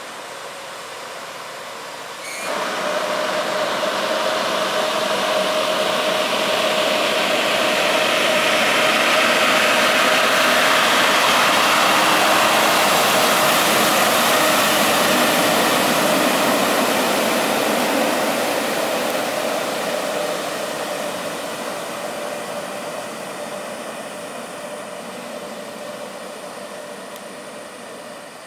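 Kenworth road train's diesel engine running as the truck pushes through floodwater, with the rush and splash of the water thrown off its wheels. The sound jumps up about two seconds in, is loudest as the truck passes close by around halfway, then fades as it drives away.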